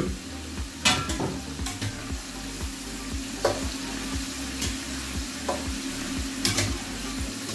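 Floured squid, shrimp and small scallops deep-frying in hot sunflower oil, a steady sizzle, while a wire skimmer stirs them and clinks against the pot several times.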